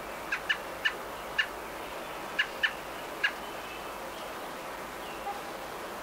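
American robins calling at the nest: seven short, sharp chirps packed into the first three seconds or so, over a steady hiss.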